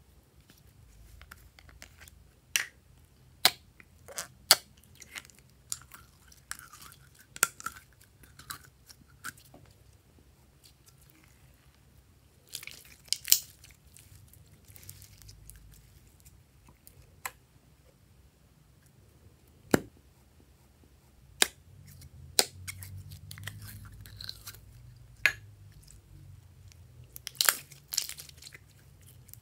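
Hands squeezing, kneading and stretching glossy glitter slime, making irregular sticky clicks and pops, with the loudest bunches about 13 seconds in and near the end.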